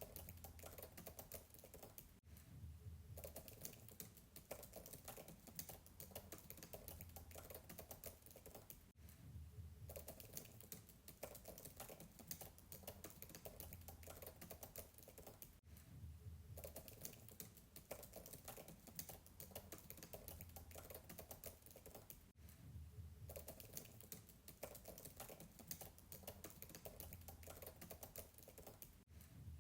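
Fast, continuous typing on a MacBook keyboard, heard faintly from a distance: rapid soft keystroke clicks, with a brief break roughly every seven seconds.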